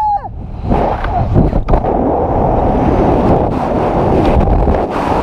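Loud wind rushing over the microphone as a rope jumper falls from a tall chimney. It is a dense, steady roar that sets in under a second in.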